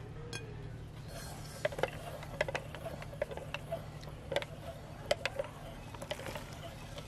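Corn kernels dropping into and against the metal hopper of a hand-crank meat grinder, and onto a glass plate. It is a scattered, irregular run of light clicks and taps that starts about a second in.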